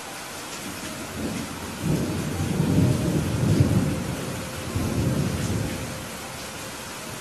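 Steady rain with a rolling thunder rumble that builds about a second in, is loudest around three to four seconds, swells once more about five seconds in, then dies away.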